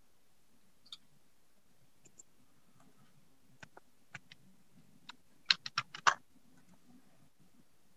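Scattered clicks of a computer keyboard and mouse, single taps at first, then a quick run of about six keystrokes about five and a half seconds in, over a faint steady hum.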